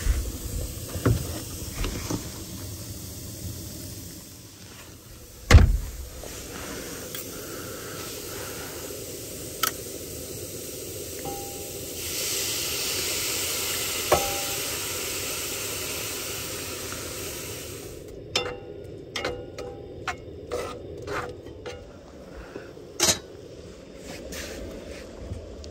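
Diced onions sizzling in a skillet on a small propane camp stove, a steady hiss that grows louder for a few seconds in the middle. A sharp knock about five seconds in, and near the end a run of short clicks and knocks as containers and utensils are handled.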